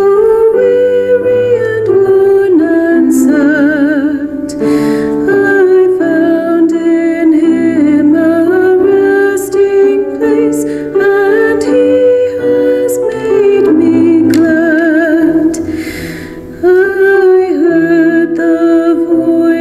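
A woman singing a hymn solo into a microphone, with vibrato on held notes, over sustained chords from an accompanying instrument. She breaks briefly between phrases about five seconds in and again near sixteen seconds.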